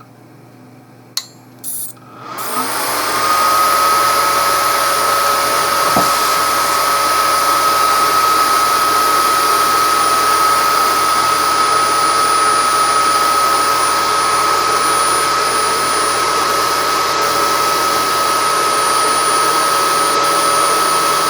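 Two clicks as it is switched on, then the welding inverter's 24-volt cooling fan spins up and runs steadily with a loud rush of air and a steady whine, its pitch rising as it comes up to speed and then holding.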